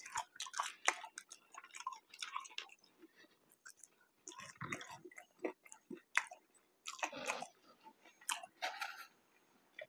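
Close-miked chewing of McDonald's french fries: wet mouth clicks and smacks in short bouts, with a lull about three to four seconds in.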